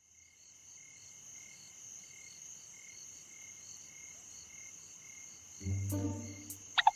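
Night-time crickets chirping in a steady, evenly pulsing chorus. About five and a half seconds in, low music notes come in over them, with a short sliding tone near the end.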